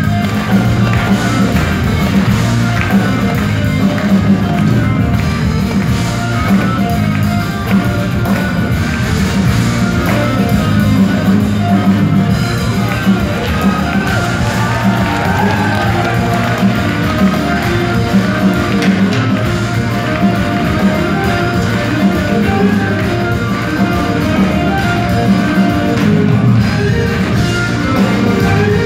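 Live band playing electric and acoustic guitars with bass, heard from the audience in a concert hall; the music runs on steadily and loudly.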